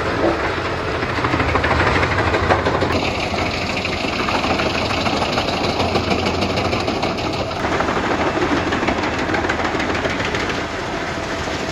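Heavy machinery engine running steadily, with dense rattling noise over a low rumble.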